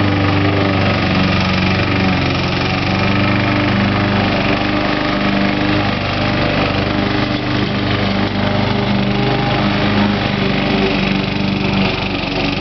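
Walk-behind gas rotary lawn mower running steadily as it is pushed through long grass, its engine note wavering a little under the load.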